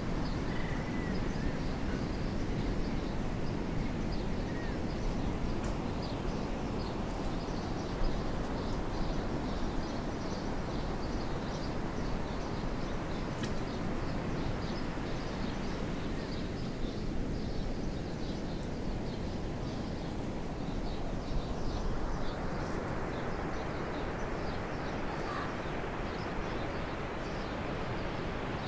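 Steady rushing background noise with many faint, quick high chirps scattered through it.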